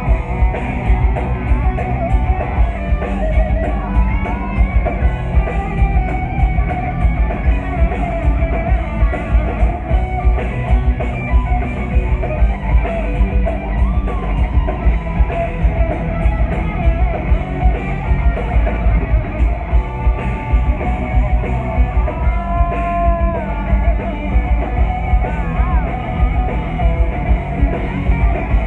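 Live heavy metal band playing: distorted electric guitars and a driving drum kit under a lead guitar melody with bends and vibrato.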